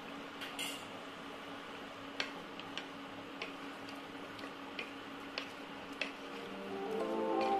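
A spoon clinks and scrapes against a metal cooking pot while curry is stirred: light, sharp ticks about every half second to second, over a steady low hum. Music fades in near the end.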